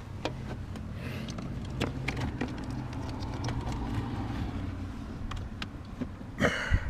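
Scattered light clicks and knocks of the antenna cable being worked through a hole behind a truck's fender, with a louder scrape or knock near the end, over a steady low rumble.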